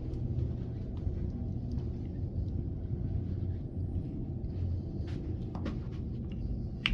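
A steady low rumble with faint scattered taps, and a sharper click near the end.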